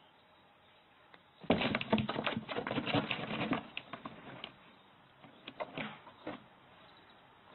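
Cardboard scratching and rustling as a cat moves around inside a box: a dense run of quick scrapes and clicks starting about a second and a half in and lasting about two seconds, then a few scattered single scratches.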